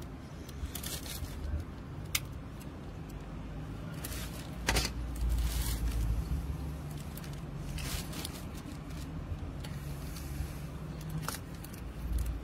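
A few sharp clicks and light scrapes of electrical wires and pliers being handled at the water pump's terminal box, over a constant low rumble.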